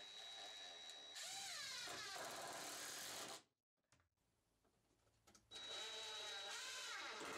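Cordless drill/driver driving screws into wood, in two runs of about three seconds with a pause between. Each run opens with a thin high whine as the trigger is eased in, then the motor whirs with its pitch rising and falling under load.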